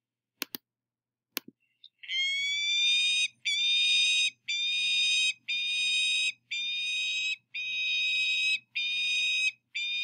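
Recorded peregrine falcon calls: a run of harsh, drawn-out, high calls, each about a second long and repeated roughly once a second, starting about two seconds in. Two mouse clicks come before them.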